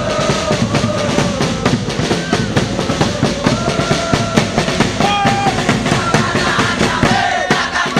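Football supporters' drums beating a fast, steady rhythm, with a sung chant carried over the beat.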